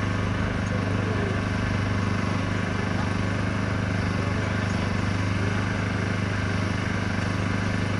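A steady low mechanical drone, like a small engine running without change, under a faint haze of outdoor crowd noise.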